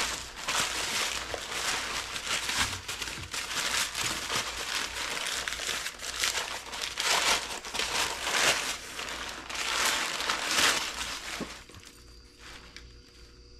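Brown kraft packing paper crumpling and rustling in bursts as it is pulled and unwrapped off a cast exhaust manifold, dying down near the end.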